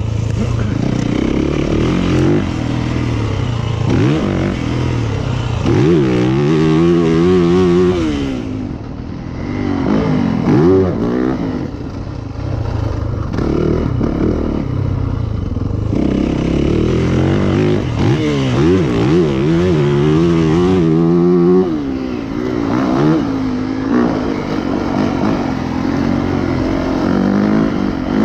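2019 Yamaha YZ450FX's single-cylinder four-stroke engine being ridden hard on dirt, rising and falling in pitch again and again as the throttle opens and closes and the gears change.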